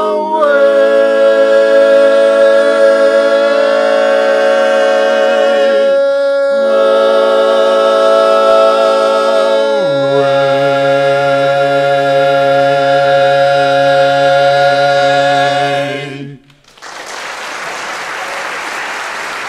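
Barbershop quartet of four men singing a cappella, holding the long final chord in four-part harmony; partway through, the bass drops to a lower note beneath the held chord. The chord cuts off near the end and audience applause breaks out.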